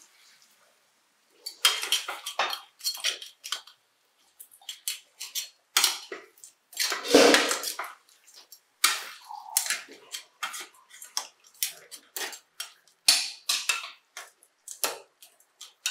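A metal slotted ladle scraping and clinking against a metal kadai as crab masala is stirred. The strokes are short and irregular, with one longer, louder scrape about halfway through.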